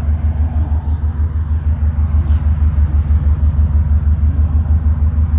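Subaru Impreza STi's turbocharged flat-four boxer engine, with Prodrive forged internals, idling with a steady, evenly pulsing low rumble.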